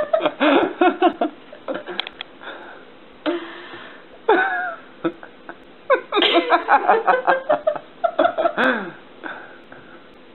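A person's voice in short bursts with quieter gaps between.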